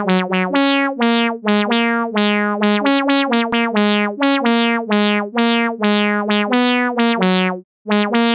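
A melody played note by note, about two notes a second, on a sampled cat meow pitched to each note like a keyboard instrument, with one brief break near the end.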